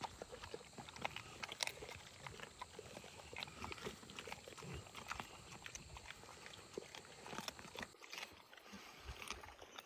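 A group of mastiff dogs eating raw chicken: many small irregular crunches and clicks as they bite and chew the meat and bones.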